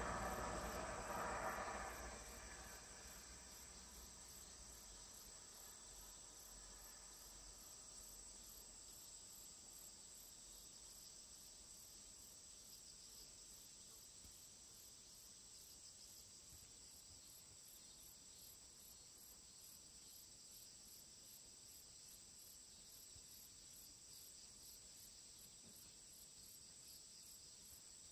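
Near silence with a faint, steady, high-pitched insect trill, such as crickets, and a low rumble that dies away over the first two seconds.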